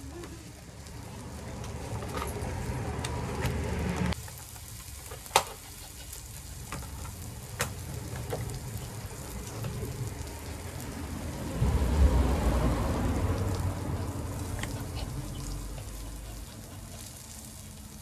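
Beef sizzling on a small tabletop barbecue grill, a steady frying hiss with a few sharp pops. A low rumble comes and goes and swells loudest about twelve seconds in.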